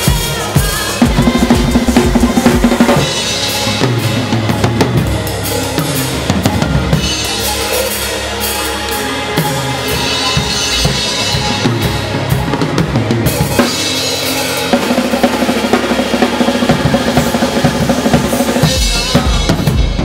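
Drum kit played busily: snare, toms, bass drum and Sabian cymbals, with stretches of cymbal wash every few seconds, along with a backing track that carries held, steady tones.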